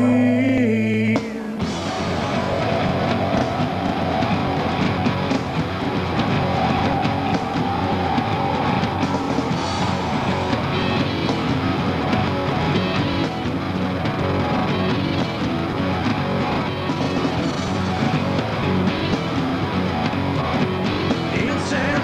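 Rock music with singing. A busier, driving section starts about a second in.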